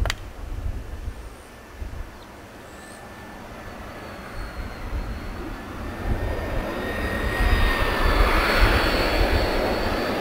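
Twin turbofan engines of a Boeing 767-300 on approach with gear down, growing steadily louder as the airliner closes in. The sound is a rising whine with two steady tones over a low, gusty rumble. A sharp click sounds at the very start.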